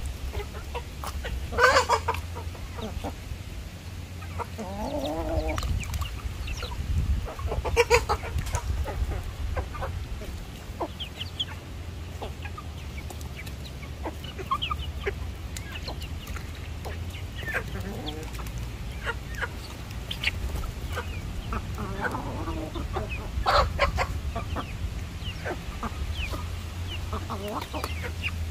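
Hens and roosters clucking and calling, with a few louder squawks spread through, over a steady low rumble.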